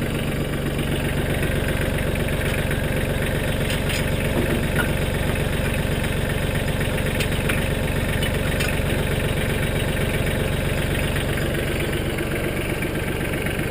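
Mahindra Max 25 compact tractor's diesel engine idling steadily, with a few light clicks over it.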